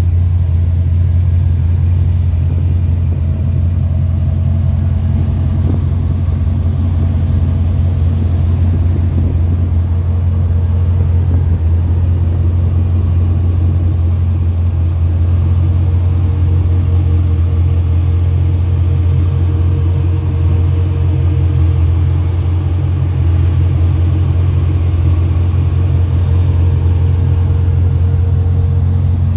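1955 Chevrolet 210's engine idling with a steady low rumble that holds even throughout.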